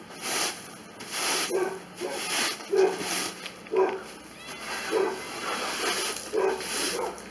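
Broom sweeping a floor: bristles swishing in repeated strokes about once a second, some strokes giving a short squeak.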